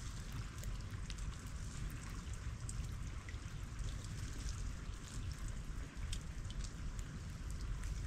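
Melting ice dripping and trickling: many small scattered ticks and drips over a steady watery hiss, with a low rumble underneath.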